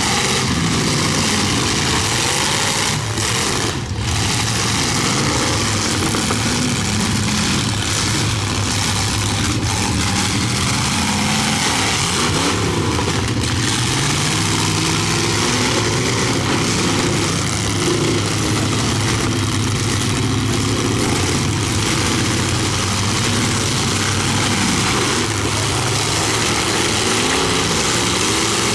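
Engines of several big sedan derby cars running and revving together, their pitches rising and falling over a constant engine din.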